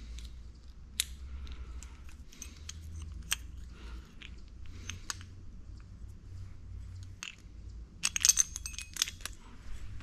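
Light metallic clicks and clinks of tools and parts being handled, with a quick run of louder clicks about eight seconds in, over a steady low hum.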